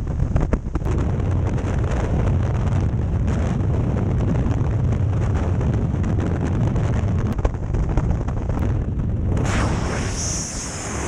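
Freefall wind rushing loudly over a helmet-mounted action camera's microphone. Near the end the rush changes to a brighter hiss and drops slightly as the parachute begins to deploy.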